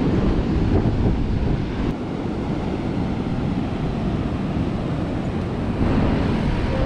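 Wind buffeting the camera microphone in a steady low rumble, over the wash of ocean surf breaking on the shore.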